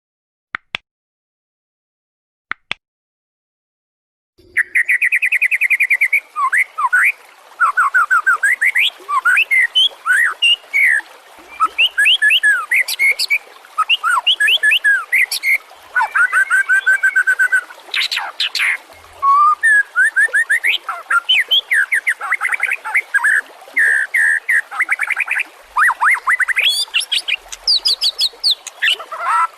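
White-rumped shama (murai batu) singing a long, varied song of quick whistles, trills and chattering phrases that follow one another without a break. It starts about four seconds in, after two short clicks.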